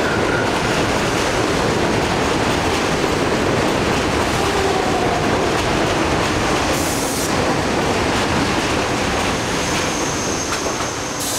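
R62A subway train pulling into an elevated station, its wheels running and clattering on the rails with faint squeals, slowing as it comes to a stop. There is a short hiss about seven seconds in and another near the end.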